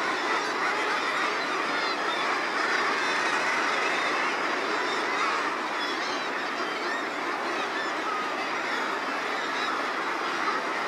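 Steady, unbroken din of a seabird colony: a great many guillemots and razorbills calling at once, overlapping so that no single call stands out.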